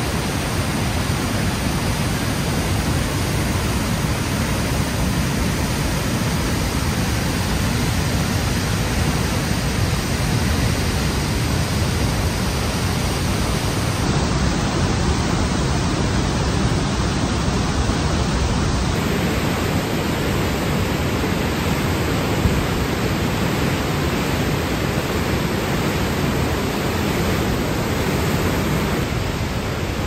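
Athabasca Falls: the Athabasca River pouring over the falls and through the gorge, a loud, steady rush of white water.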